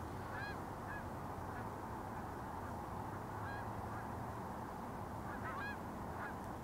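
Geese honking: short calls scattered through, with a quick cluster of several calls about five and a half seconds in, over a steady background hiss.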